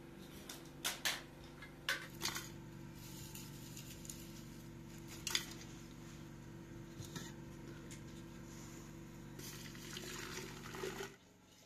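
A spoon clinking against a tea caddy and glass teapot as loose black tea is spooned in, with a few sharp clinks in the first half. Near the end, water is poured into the glass teapot over the tea and rosebuds, a splashing pour that stops suddenly.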